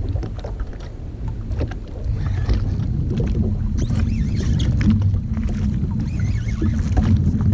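Steady low rumble around a Sea-Doo jet ski on open sea, with scattered light clicks and knocks.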